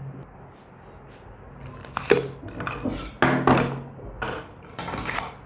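Steel SDS chisel bits clinking and knocking as they are handled, slid out of their plastic sleeves and set down on a hard table: a quick run of sharp clacks from about two seconds in, over a low steady hum.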